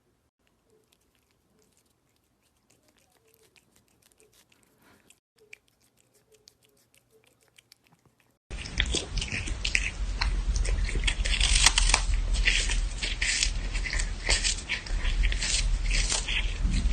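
A pet chewing and crunching food: faint, sparse chewing clicks at first, then from about halfway through much louder, close-up, rapid crunching and chomping.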